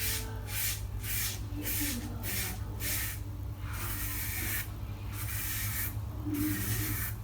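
R1 Calypso safety razor with a heavy stainless steel head and a Gillette Nacet blade scraping stubble and lather off a scalp against the grain in a run of rasping strokes, quick short ones at first and longer ones from about four seconds in. A steady low hum lies beneath.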